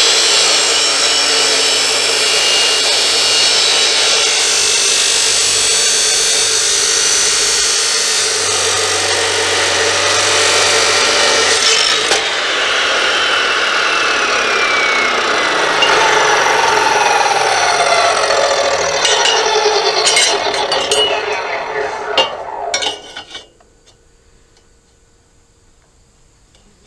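Hercules 14-inch, 15-amp abrasive cut-off saw grinding through steel rectangular tubing with a loud, harsh rush. In the second half the motor's whine falls in pitch as the wheel winds down, with a few sharp clicks. Then the sound stops suddenly near the end.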